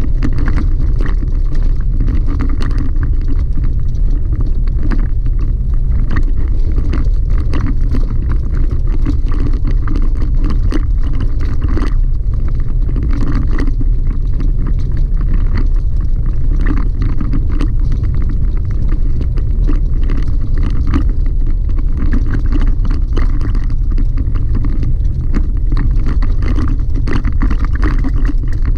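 Chevy Colorado ZR2 pickup driving a gravel road, heard from inside the cab: a loud, steady low rumble of tyres and running gear, with constant small clicks and rattles.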